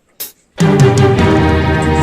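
Background music: a brief sharp hit in a short pause, then full music with a steady low beat comes in loudly about half a second in.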